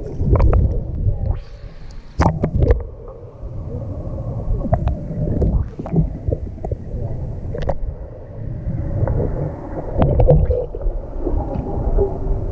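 Pool water heard through a GoPro moving at and under the waterline: a muffled low rumble with splashes and scattered sharp clicks, loudest a couple of seconds in.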